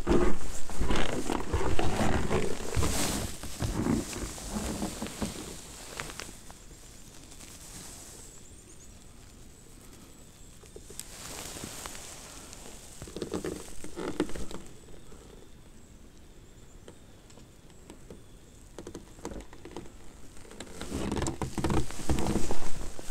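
Footsteps crunching in snow, irregular and fairly loud for the first few seconds and again near the end, with a quieter stretch between.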